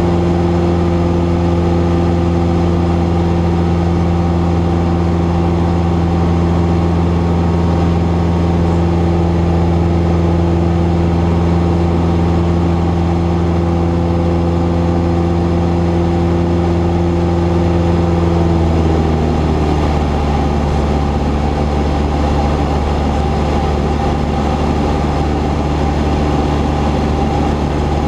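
Cessna 172's engine and propeller droning steadily. About two-thirds of the way through, the pitch drops and stays lower as power is reduced.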